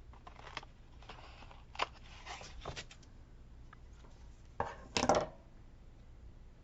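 Paper and stickers handled on a desk: a few light taps and rustles, then a louder, brief paper rustle or scrape about five seconds in.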